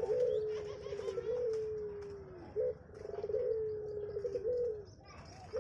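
Puter pelong dove cooing: two long coo phrases, each mixing a fast rolling trill with a long held note that sinks in pitch at its end, with a short separate note between them about two and a half seconds in.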